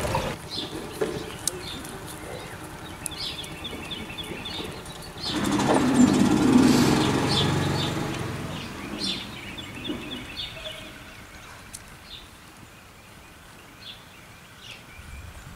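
Small birds chirping repeatedly over outdoor background noise. A louder rushing noise swells up about five seconds in and dies away over several seconds.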